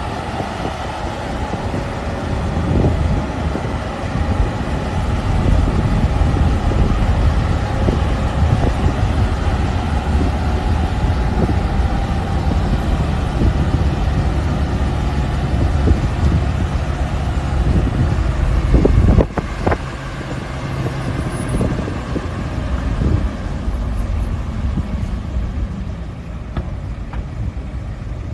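Steady low rumble of a road vehicle driving, engine and road noise heard from inside the vehicle. It drops somewhat in level after a brief knock about two-thirds of the way through.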